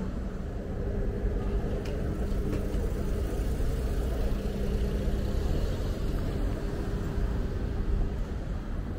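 Street ambience made mostly of the steady low rumble of a motor vehicle's engine. A steady hum starts about half a second in and stops shortly before the end.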